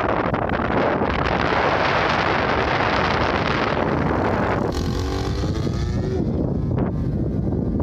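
Strong wind buffeting the microphone. For a second or two past the middle, the wind eases and the small RCGF 10cc two-stroke gas engine of a model aeroplane comes through, its pitch falling slightly as it flies by.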